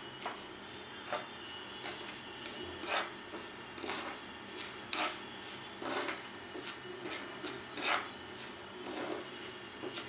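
Steel spoon scraping and stirring semolina through ghee in a non-stick pan, a gritty rubbing with a louder scrape about once a second, as the semolina is slowly roasted.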